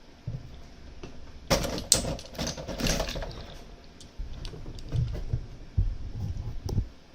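Metal picks clicking and scraping inside a Mosler M5700 safe deposit box lock as its discs are worked. There is a busy run of clicks and rattles about a second and a half in, then scattered clicks later on.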